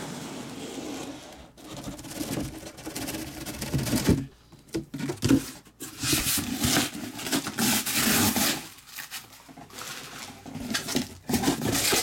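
Handling noise: a cardboard case scraping as it is slid off a stack of shrink-wrapped boxes, with plastic wrap rustling in irregular bursts and short pauses.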